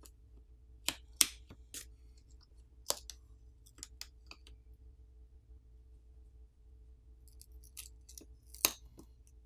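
Plastic pry pick lifting and peeling adhesive-backed covers off a smartphone's internal frame: scattered sharp clicks and crackles, the loudest about a second in, around three seconds, and near the end.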